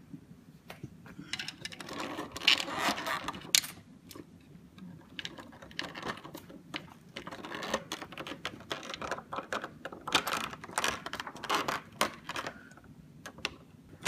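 Orvibo smart wall switch being pushed into its wall box and screwed down with a hand screwdriver: plastic scraping, clicks and the rattle of metal screws, in two busy spells.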